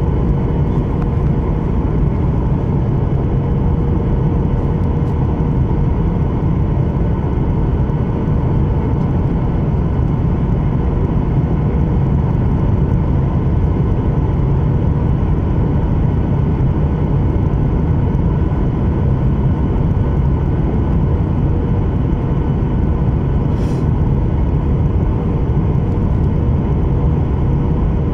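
Steady cabin noise of a Boeing 737-800 in flight, heard from a window seat beside the wing: the CFM56 jet engines and rushing air, with a faint steady hum running through it.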